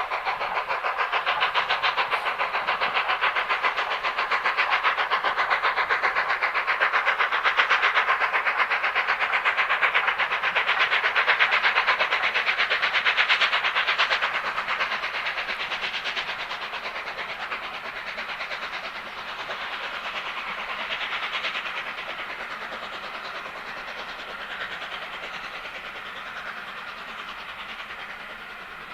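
Steam-hauled train going past at speed behind LNER Peppercorn A1 Pacific 60163 Tornado: a fast, even rhythm of beats and rail clatter, loudest in the first half and then fading away as the train recedes.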